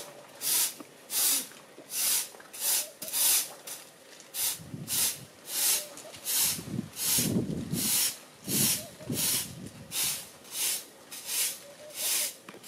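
Long-handled straw broom sweeping the ground in steady, even strokes, a short hissing swish about three times every two seconds.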